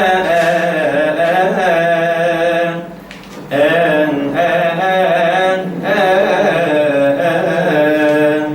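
Male cantor chanting a Coptic hymn in long, wavering melismatic phrases, with a short break for breath about three seconds in.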